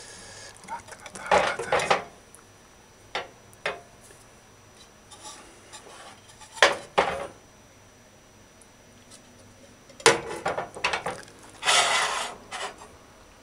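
Slotted metal serving spoon clinking and scraping against a metal cooking pot as stew is spooned out, in several separate bursts of clinks and scrapes.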